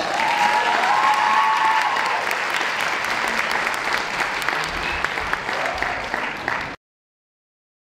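Audience applauding, cut off suddenly near the end.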